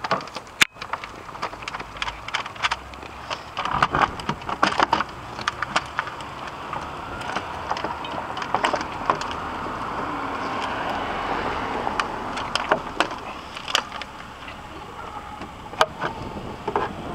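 Clicks, knocks and rattles of a Honda Accord's plastic air filter housing cover being lifted and the air filter handled, with a steady rushing noise that swells and fades through the middle seconds.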